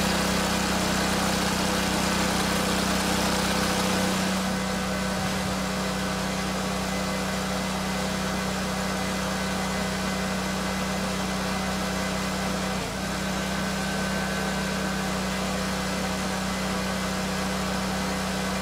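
Gas pressure washer engine running steadily under load, with the hiss of water spraying from the wand's low-pressure soap tip loudest for about the first four seconds.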